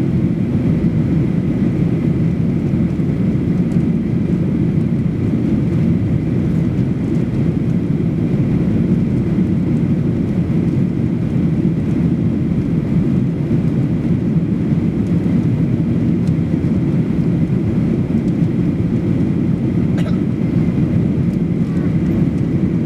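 Steady low cabin roar inside a Boeing 737-800 in flight: its CFM56-7B turbofan engines and the airflow over the fuselage, heard from a window seat beside the wing.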